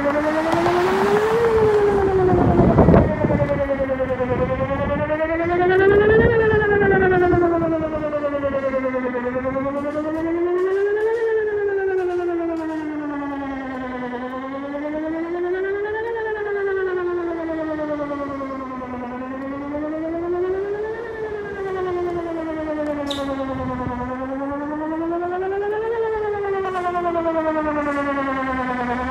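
Whelen WPS 2909 electronic outdoor warning siren sounding a slow wail test, its pitch rising and falling smoothly about once every five seconds. A brief low rumble comes through about three seconds in.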